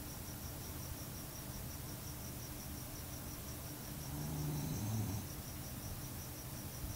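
Staffordshire bull terrier snoring: one drawn-out low snore about four seconds in, lasting about a second. Behind it runs a steady high chirping at about five pulses a second.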